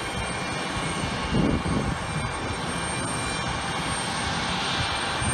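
Distant jet engines of a United Express regional jet running as it rolls along the runway: a steady rush of engine noise with thin high whining tones, strengthening in the upper range near the end. A few low rumbles come through about a second and a half in.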